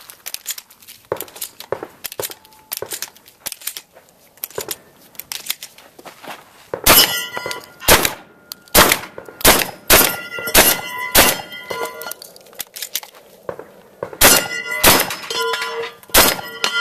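Shotgun firing at steel targets. Each blast is followed by the clang and ringing of a struck steel plate. About eight shots come roughly a second apart, then about five more after a pause of two seconds. Before the first of these loud shots there are several seconds of lighter clicks and knocks.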